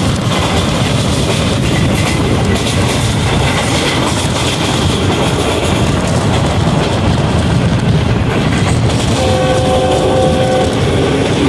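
Rail car running at speed, a steady loud rumble of wheels on the track from a window of the moving coach. About nine seconds in, a train horn blows one chord for about a second and a half.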